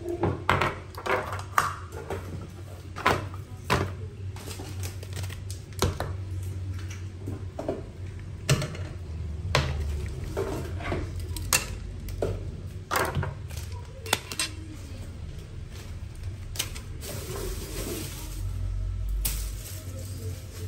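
Stainless-steel spice shakers and plastic spice containers clinking and knocking as they are picked up and set down in a kitchen drawer, in irregular sharp clicks. Near the end there is a couple of seconds of rustling.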